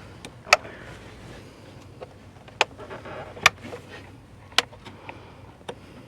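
About five sharp clicks and knocks, irregularly spaced, from parts being handled.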